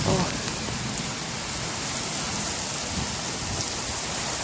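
Heavy thunderstorm downpour: a steady, dense hiss of torrential rain.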